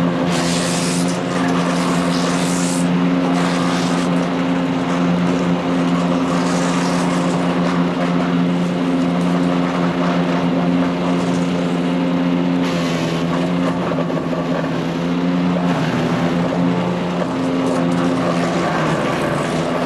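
Power King wood chipper shredder's 14 HP Kohler CH440 engine running steadily at speed, with several short bursts of noise as material goes through the chipper, mostly in the first few seconds and again about 13 seconds in.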